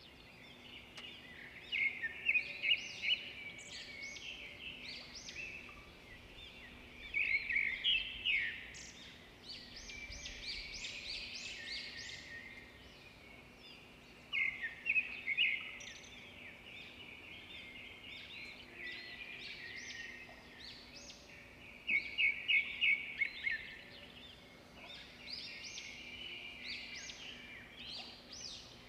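Small birds chirping and twittering in repeated bursts of quick high notes, with a faint steady low hum underneath.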